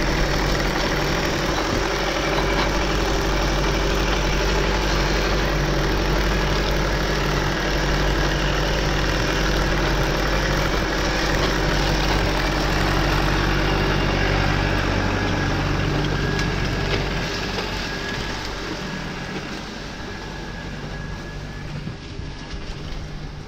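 Massey Ferguson tractor's diesel engine running steadily while it works the hop-harvesting frame, a steady low drone with mechanical clatter above it; it grows somewhat quieter in the last few seconds.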